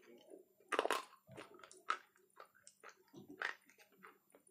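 Chhota Bheem brand slate pencils being bitten and chewed close to the microphone: sharp crunches, loudest about a second in and again about three and a half seconds in, with smaller crunches between.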